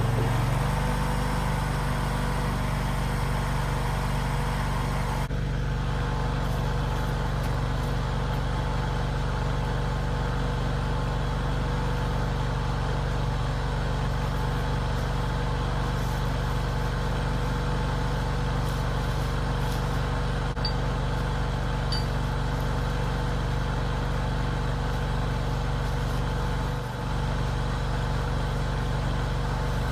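Mini skid steer's engine running steadily, its pitch dropping slightly about half a second in, with a brief dip near the end.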